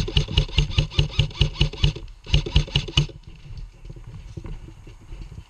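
Airsoft rifle firing a rapid string of shots, about six a second, for roughly two seconds, then a second shorter string after a brief pause.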